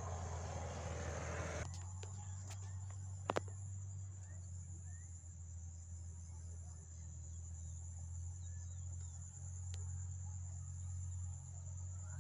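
Faint insect calls: a steady high buzz and a higher chirp that pulses about once a second, over a low steady hum. A short noisy rush stops abruptly just under two seconds in, and a single sharp knock comes a little after three seconds in.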